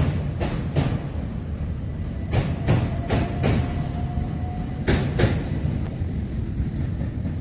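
Passenger train crossing a steel truss railway bridge: a steady low rumble with sharp clicks coming in quick pairs as the wheels run over rail joints, and a faint steady whine in the middle.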